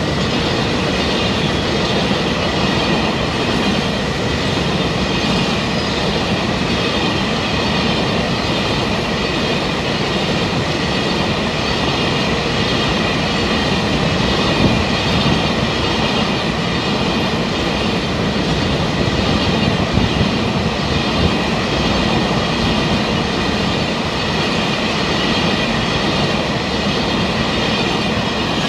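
Container freight train wagons rolling past close by: a steady, loud rumble of steel wheels on the rails with the clickety-clack of wheels over rail joints and a steady high-pitched whine above it.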